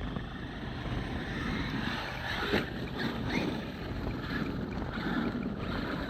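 Traxxas X-Maxx electric RC monster truck driving, its motor whining up and down in pitch a few times in the middle, over a steady rushing noise.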